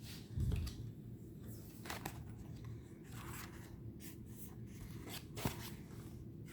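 Tarot cards being handled and turned over: faint rubbing and sliding of card stock with a few light clicks, and a soft low thump about half a second in.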